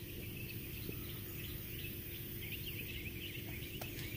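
Birds chirping in the background, busier in the second half, over steady low background noise with a faint hum.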